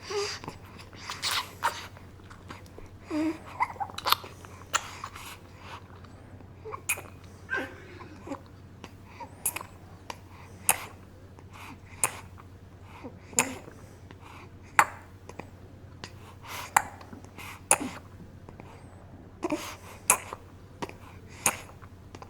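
Sound effect of a bottle-fed baby feeding: short wet sucks and gulps, roughly one a second and unevenly spaced, with a few small grunts between them.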